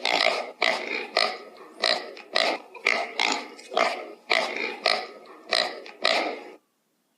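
An animal giving a rapid series of short, rough calls, about one every half second, that stop abruptly near the end.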